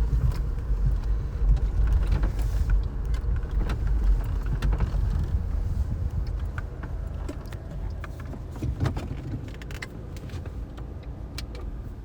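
Car driving: a steady low rumble of road and engine noise with small clicks and rattles. It slowly dies down over the second half.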